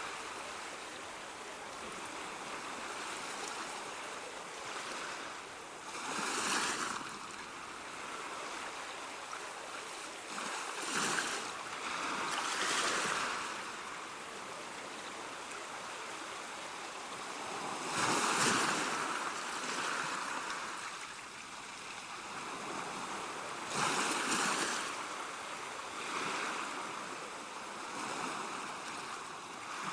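Ocean surf: a steady rush of water, with a wave swelling and breaking every few seconds.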